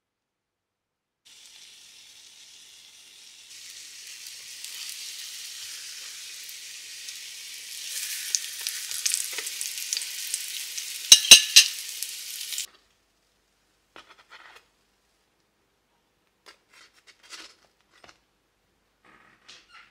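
Buns frying in oil in a pan: a steady sizzle that grows louder, with a few sharp clicks of a metal fork against the pan near the middle. The sizzle then cuts off suddenly, leaving only a few faint light clicks.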